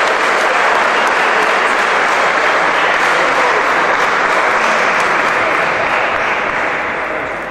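A crowd applauding steadily, starting to die away near the end.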